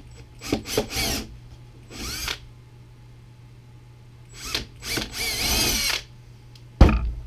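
Cordless drill run in several short trigger bursts, its motor speeding up and slowing so the whine rises and falls, the longest burst lasting about a second. A sharp knock sounds near the end.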